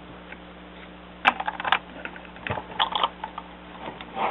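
Hard plastic LEGO pieces of a built model clicking and rattling as it is handled, in a few short runs of small sharp clicks, with a denser clatter near the end.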